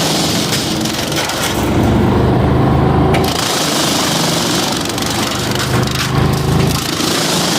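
Wood chipper running loud and steady. Its sound changes between about two and three seconds in, when the high hiss drops away and the low engine part gets louder, and it shifts again near the end.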